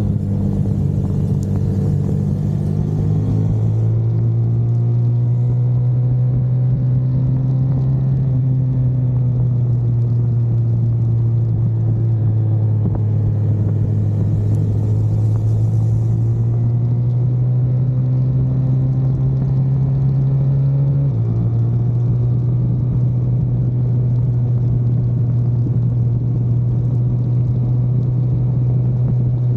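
Car engine running under sustained load on a racetrack, its drone slowly rising in pitch as it accelerates, then dropping suddenly about two-thirds of the way through at an upshift.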